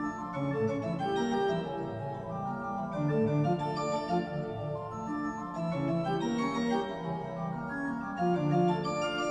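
Organ music playing held chords with a moving line of notes.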